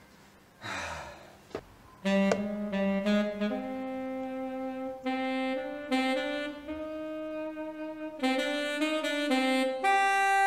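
Slow, sultry saxophone melody played as backing music, coming in about two seconds in with long held notes, a run of quick notes near the end, then a long held note. It is set over a slow-motion resin pour. Before it there is a brief hiss and a click.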